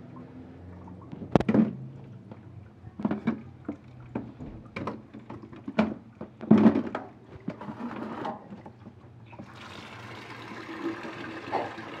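Plastic washing-machine parts knocking and clattering as they are handled and put into a plastic basin, then, from about nine and a half seconds in, tap water running steadily into the basin over them.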